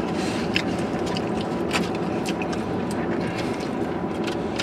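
Steady hum inside a car cabin, with a few light clicks and smacks of people eating takeout with plastic forks.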